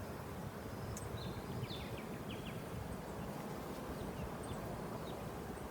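Honeybees humming steadily around an open hive, with a few short, faint bird chirps between one and two and a half seconds in.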